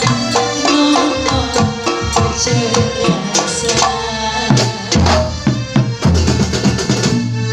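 Live kuntulan music from Banyuwangi: a terbang frame-drum ensemble beating a steady, dense rhythm under a pitched melody line.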